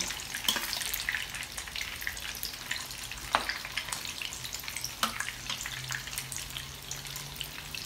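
Hot oil sizzling and crackling as green-masala-coated mutton chops deep-fry in a pan, with a few sharp clicks of a metal slotted spoon as more pieces are lowered into the oil.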